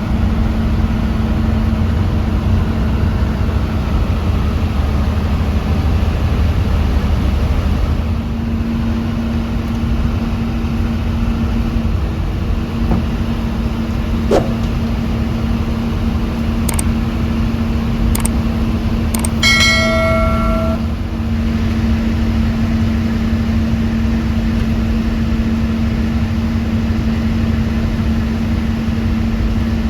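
Bus running along the road: a steady engine hum and road rumble, with a few sharp clicks and rattles. About two-thirds of the way through, a short pitched tone sounds.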